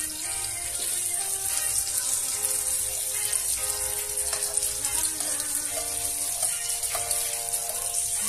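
Small whole fish sizzling steadily in hot oil in a frying pan, with a few light clicks as metal tongs turn them, under background music with held notes.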